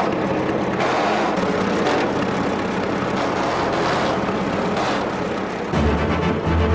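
Fordson tractor engine running steadily under load. Near the end, deep low music comes in over it.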